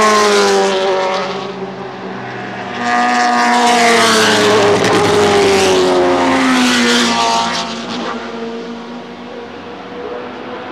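Group C sports-prototype racecars passing at speed, each engine note dropping in pitch as it goes by. One car passes at the start, then several cars pass together from about three to seven and a half seconds in, their notes overlapping, before a fainter engine note carries on in the distance.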